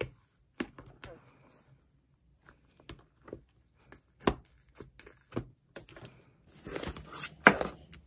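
Fluffy slime being scooped and worked with a plastic spoon in a plastic tub, giving scattered sticky clicks and pops. Near the end comes a denser run of crackling as the slime is lifted and pulled out of the tub.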